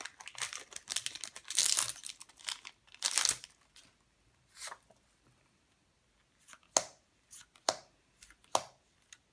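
Trading cards being handled and sorted by hand. Dense rustling and sliding runs through the first three seconds or so, then after a short lull come a few single sharp clicks as cards are tapped or set down.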